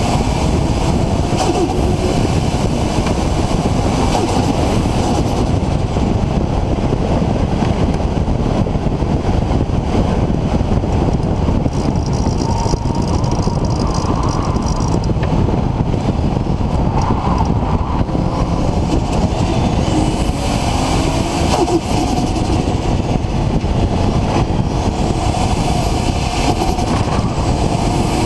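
Nissan RB26 straight-six engine with a Garrett GTX4088R turbocharger running under way. Its pitch rises and falls with the revs near the start and again in the last third, over a heavy steady rush of noise.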